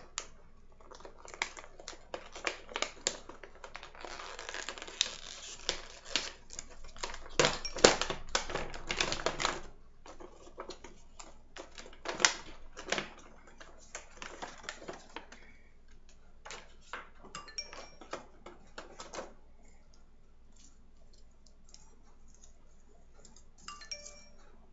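Irregular clicks, taps and rustling as a wig's cardboard box and packaging are opened by hand, busiest for a few seconds after the start and thinning out toward the end.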